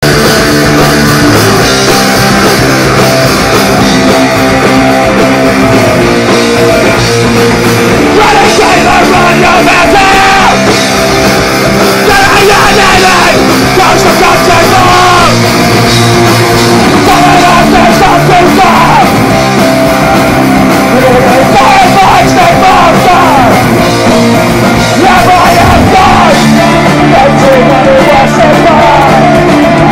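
Punk rock band playing live and loud: electric guitars and a drum kit, with a vocalist shouting and singing into a microphone.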